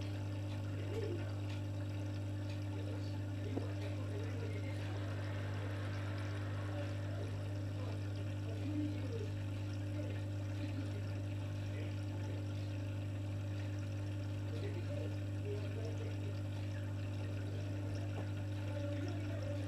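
Aquarium filter running: a steady low hum with water trickling and bubbling.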